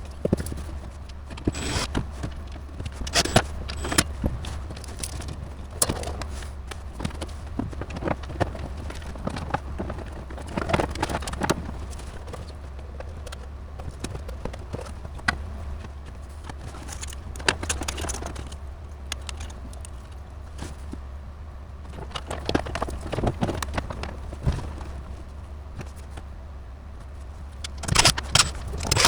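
Irregular clunks, clicks, rattles and scrapes of computer hardware and cables being handled and moved while a rack is rearranged, over a steady low hum. The knocks come thickest near the end.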